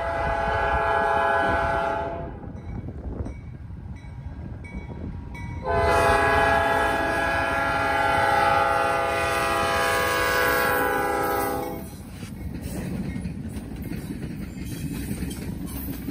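Norfolk Southern freight locomotive's horn sounding twice: a blast that cuts off about two seconds in, then a long blast of about six seconds. After the horn stops, the lead locomotives and the first freight cars pass close by, with a steady rumble.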